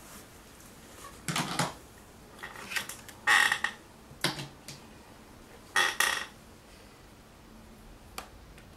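Clinking and rattling of painting gear: a paintbrush knocking against a hard paint container, in about five short bursts, the loudest ones ringing briefly, then a single light click near the end.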